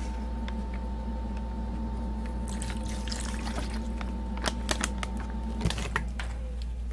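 Soy-sauce and sake marinade trickling and squishing in a plastic zip-top bag as chicken pieces go in, with plastic rustling and a few light clicks. A steady background hum runs underneath and stops about two-thirds of the way through.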